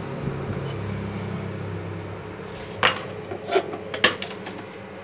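Hitachi miter saw's motor and blade coasting down after a cut, the hum fading away over the first two seconds. Then come a few sharp wooden clunks and knocks as the cut pieces of wood are handled and cleared off the saw table.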